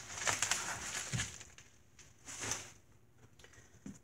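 Rustling and handling noise, a few short scuffs and rustles, as cardboard boxes and packaging are moved about.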